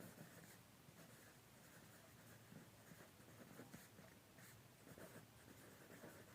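Faint scratching of handwriting on paper, in short irregular strokes.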